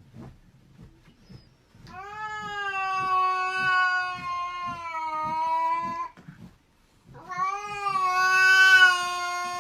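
A cat yowling in two long, drawn-out calls held at a nearly steady pitch, the second louder than the first.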